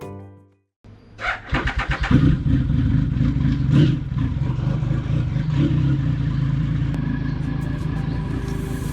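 Triumph Sprint GT 1050's three-cylinder engine being started: the starter cranks about a second in, the engine catches within a second, is blipped twice, then idles steadily. A music intro fades out just before.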